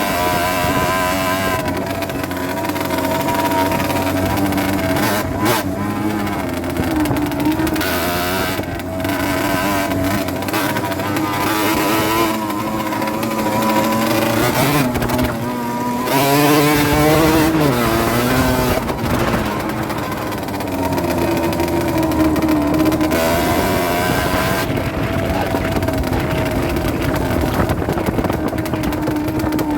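Rieju Drac 50 moped's 50cc engine running while ridden, its revs rising and falling repeatedly with the throttle and gear changes.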